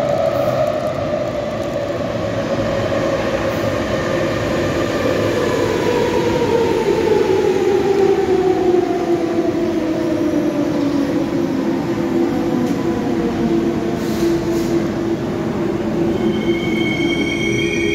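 Athens Metro Line 2 train pulling into the station and braking. Its whine falls steadily in pitch as it slows, then levels off, and a high squeal comes in near the end as it comes to a stop.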